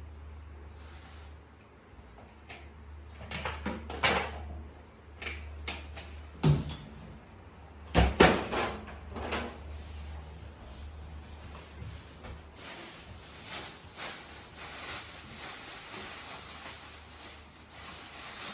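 Several knocks and bangs of household doors being opened and shut, the loudest about eight seconds in, over a steady low hum.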